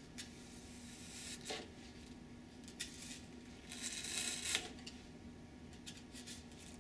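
Carpet knife blade slicing through a paper-covered foam wing: faint scratchy cutting strokes, a few short ones and a longer one a little past the middle.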